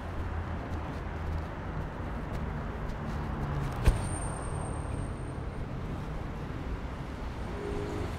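Steady road traffic on a busy city avenue, passing car engines and tyre noise. A single sharp click about four seconds in is the loudest sound, followed by a thin high whistle lasting under two seconds.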